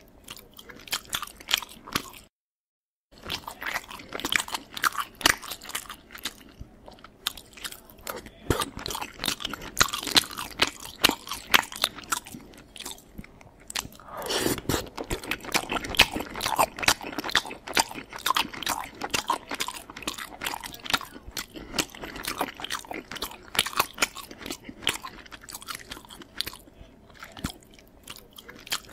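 Close-miked eating: wet chewing and crunching of food, with irregular mouth clicks and smacks. The sound cuts out completely for about a second near the start.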